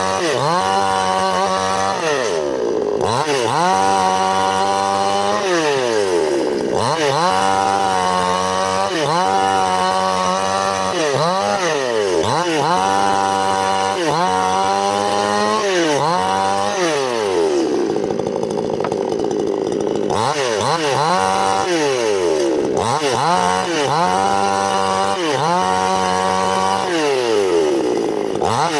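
Chainsaw cutting wood, its engine revving up and down over and over, with the pitch sagging for a few seconds at a time under load, longest about two-thirds through.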